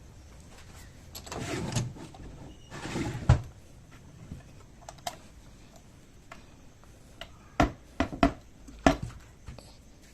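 Handling noises: two short scraping rustles, the second ending in a thud, then four sharp knocks in quick succession near the end.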